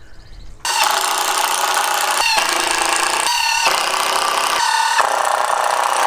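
Cordless drill/driver running under load as it drives screws through a wooden batten into boards. It starts sharply under a second in and runs almost without a break, its motor pitch wavering as the load changes.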